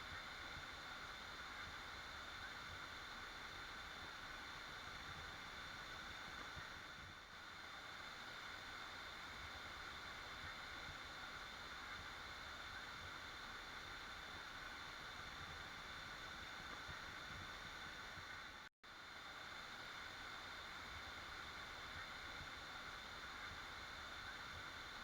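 Waterfall rushing steadily. The sound cuts out completely for an instant about three-quarters of the way through.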